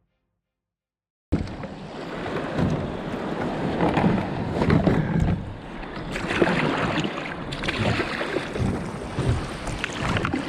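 Water sloshing and splashing around a kayak as it moves along, with wind on the microphone; it starts abruptly about a second in.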